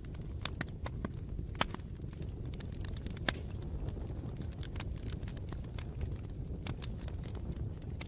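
Campfire crackling: irregular sharp snaps and pops over a steady low rumble of the burning fire, with two louder pops about one and a half and three seconds in.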